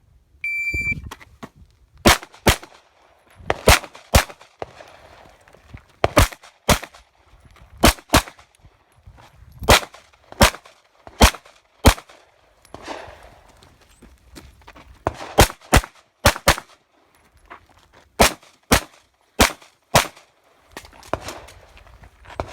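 An electronic shot timer gives its start beep, then a pistol fires a string of shots, mostly in quick pairs, with short pauses between groups.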